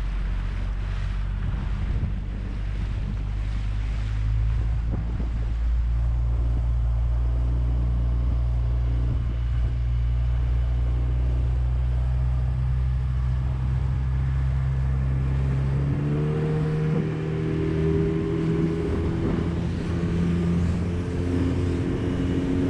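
Small outboard motor driving an inflatable dinghy along at steady throttle. Its note changes and rises about two-thirds of the way through.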